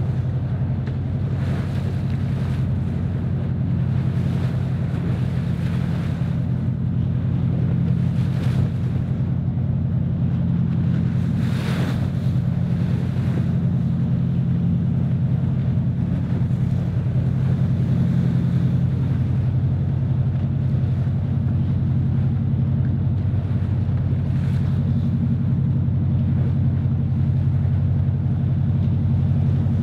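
Steady low drone of a boat engine running at sea. Waves wash and splash against the hull, with a few louder splashes or gusts, and wind noise buffets the microphone.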